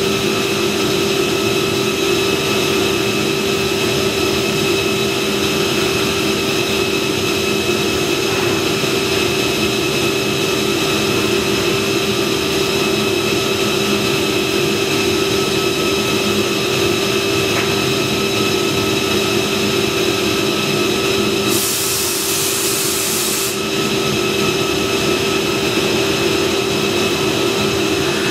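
Woodworking machinery in an automated furniture-component production line running with a steady hum made of several constant tones. A high hiss lasting about two seconds cuts in about three-quarters of the way through.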